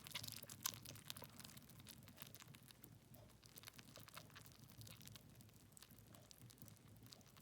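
Near silence with faint scattered clicks and crackles, one slightly louder click just under a second in.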